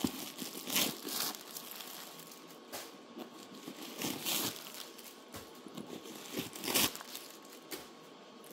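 Packing stuffing crinkling and rustling as it is pulled out of a new leather handbag, in several separate bursts.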